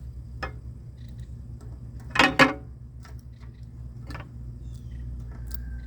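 Sharp clicks and taps of hand work with a grease gun at an excavator grease fitting. The loudest is a pair about two seconds in, with single ticks before and after, over a steady low hum.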